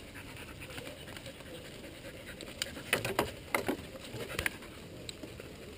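Dog picking up and handling a long wooden branch in its mouth: twigs knocking and scraping against each other, with a quick cluster of clicks and cracks about three to four and a half seconds in.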